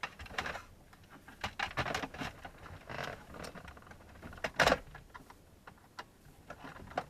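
Hands working on car dashboard trim and fittings: scattered plastic clicks, taps and rustles, with a louder knock about four and a half seconds in.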